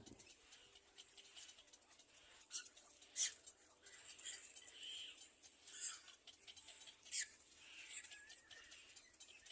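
Nestling birds in a nest: faint high-pitched cheeping and scratchy rustling, with a few sharper chirps about three, six and seven seconds in.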